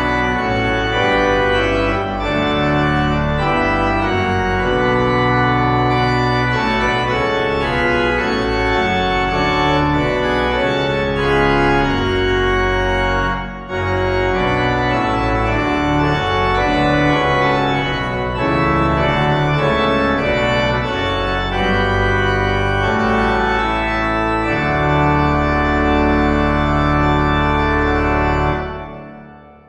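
Organ playing a hymn tune in full chords over a strong bass, with no singing heard. There is a short break about halfway through, and the closing chord dies away near the end.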